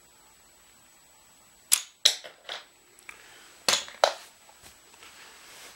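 A 3D-printed PLA toy crossbow being shot, with a pencil as its bolt: sharp snaps and clacks in two clusters about two seconds apart.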